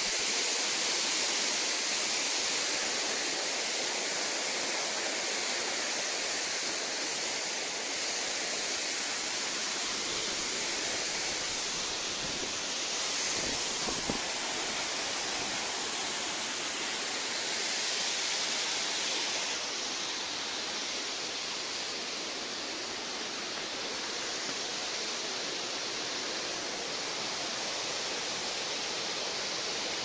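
Tirathgarh waterfall pouring down stepped rock ledges into churning white water: a steady rush of falling water.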